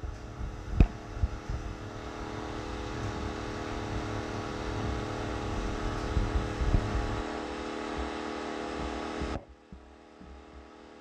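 Predator 2000 inverter generator's single-cylinder four-stroke engine running steadily at full speed with eco mode switched off, heard from about 23 feet away. A sharp knock comes about a second in, and the sound drops off abruptly near the end.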